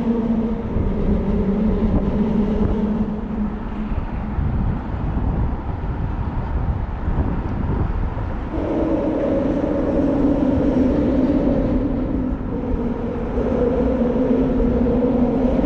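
A motor running with a steady hum that fades about four seconds in and returns higher in pitch about eight and a half seconds in, over a low rumble of wind on the microphone.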